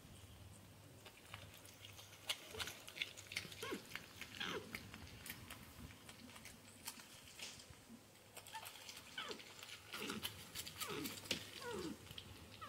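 Porcupines eating peanuts: faint crunching and clicking of chewing, with short, soft falling grunts and whines from the animals now and then, more of them near the end.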